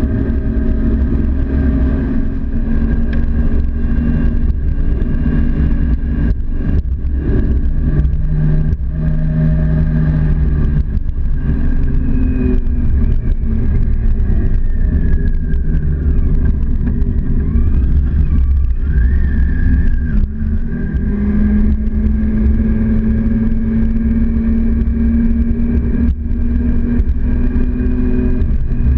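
Motorcycle engine running at road speed, with heavy wind rumble on the microphone. About halfway through the engine pitch drops and then climbs again as the bike slows and speeds up.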